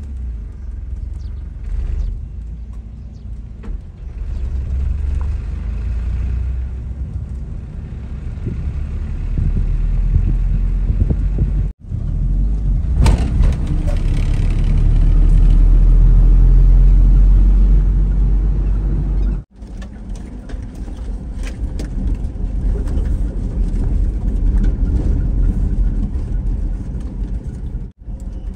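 Suzuki Carry mini truck driving, a steady low rumble of engine and road noise heard from inside the cab, loudest in the middle. The sound drops out briefly three times at cuts between clips.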